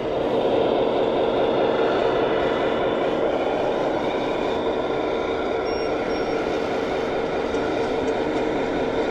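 Radio-controlled scale model machinery running with a steady mechanical drone. Two short high beeps come about six seconds in.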